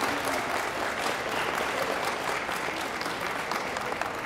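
Audience applauding steadily, a dense, continuous patter of many hands clapping.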